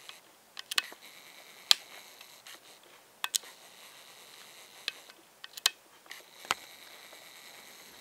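Handheld camera being handled close up while it struggles to focus: a few scattered sharp clicks and taps, irregularly spaced, over a faint steady hiss.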